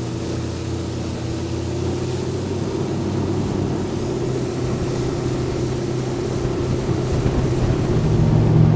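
Outboard motor of a Ranger RT198P aluminium bass boat running under way, a steady drone over a rushing hiss of wind and water, growing a little louder near the end.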